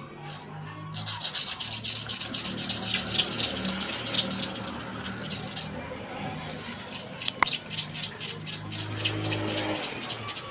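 Clipper blade being rubbed rapidly back and forth on an abrasive sharpening surface: a fast, even scraping with several strokes a second and a brief pause about six seconds in.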